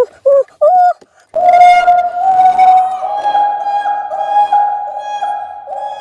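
A child's voice howling: three short rising yelps, then a long, high sustained howl that wavers in small pitch steps.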